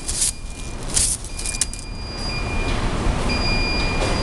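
Gloved hands handling things at a metal lab bench: short rustles near the start and about a second in, over a steady low rumble and a high-pitched whine that comes and goes.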